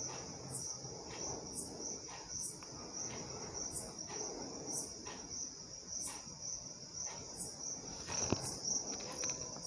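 Thick mutton curry frying in an open aluminium pressure cooker: a faint sizzle with a spatula scraping and stirring through it. Over it, a steady high-pitched chirping repeats about once a second.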